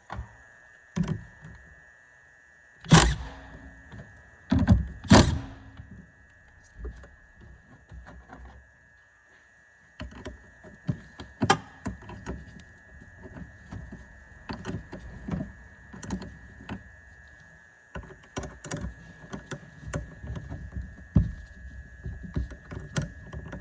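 Two loud thuds about two seconds apart, then a long run of irregular light clicks and knocks from hands and tools working on the vehicle, over a faint steady high tone.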